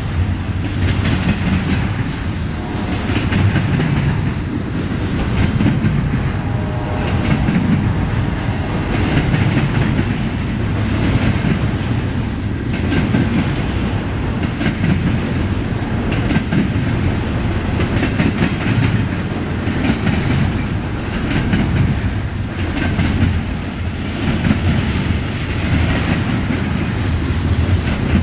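Double-stack intermodal container train's well cars rolling past, a steady rumble of steel wheels on rail with a rhythmic clickety-clack as the trucks pass over the rail.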